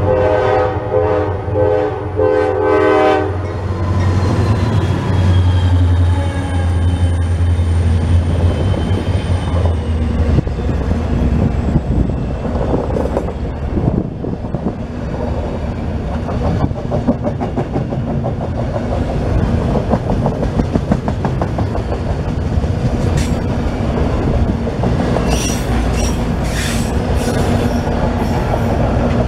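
Diesel freight locomotive blowing its multi-note air horn for about three seconds as it approaches, then its engine rumbling past. A long string of auto-rack cars follows, rolling by with the steady clickety-clack of wheels over rail joints and a few brief high wheel squeals near the end.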